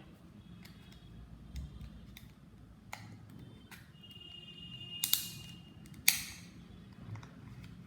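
Plastic tool prying at the tight plastic locking clips of a headphone ear cup: scattered small clicks, a faint plastic creak, and two louder short scrapes about five and six seconds in.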